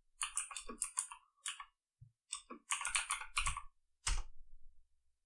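Typing on a computer keyboard: a quick, irregular run of keystrokes that stops about four seconds in.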